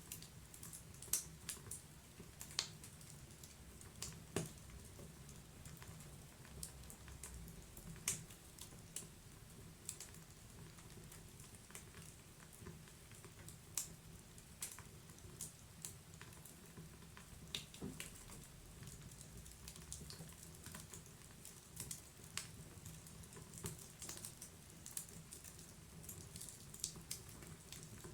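Wood fire burning in a fireplace, crackling: irregular sharp pops and snaps of burning wood, some louder than others, over a low steady rush of the flames.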